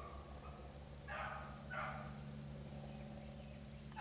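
Beagles baying while running a rabbit. One bay tails off at the start, then two short bays come a second or so in, close together.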